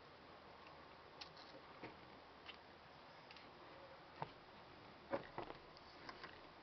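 Scattered light metallic clicks as small snap parts are handled and seated on a hand snap-setting press. A brief cluster of sharper clicks comes about five seconds in.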